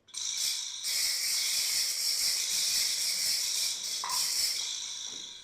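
A steady hiss, like a sound effect made for a film, starting abruptly and tapering off near the end.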